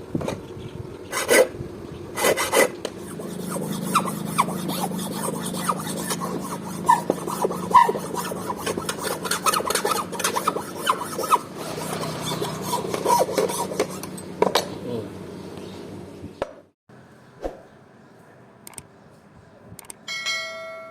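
Knife blade forged from an old steel file being hand-sharpened: repeated scraping strokes of steel on an abrasive, which stop suddenly with a short ringing tone near the end.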